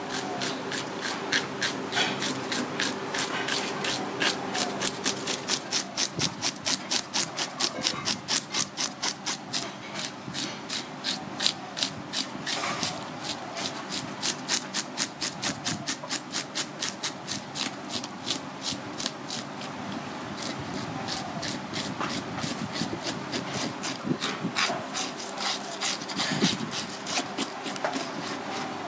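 A whole grouper being scaled by hand: quick, rhythmic rasping scrapes across the fish's skin, about three or four strokes a second, as the scales are flicked off onto a plastic cutting board.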